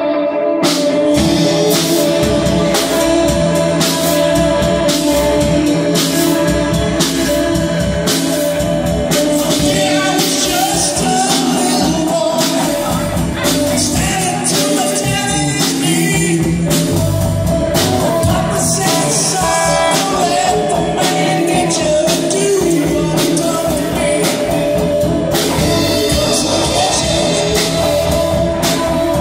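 Live rock band playing: electric guitar, electric bass and a Pearl drum kit keeping a steady beat, with a man singing lead vocals.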